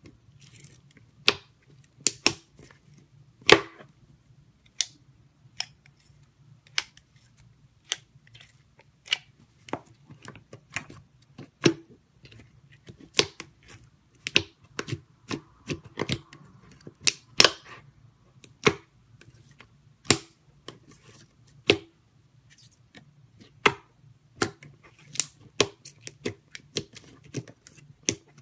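Fingers poking and pressing into clear slime in a plastic container, making sharp, irregular pops and clicks, about one or two a second, over a faint steady low hum.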